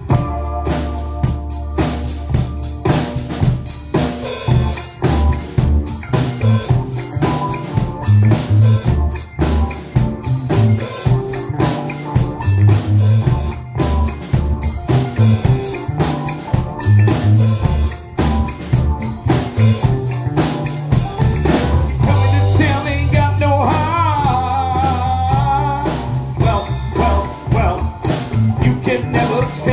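DW drum kit and electric bass playing a steady rock groove together: kick, snare and cymbal hits over a walking bass line. A wavering, bending melodic line comes in about two-thirds of the way through.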